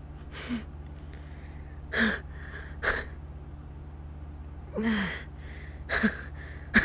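A woman's breathing in short gasps and breaths, several separate ones, with a longer groan falling in pitch about five seconds in: the pained breathing of an injured woman.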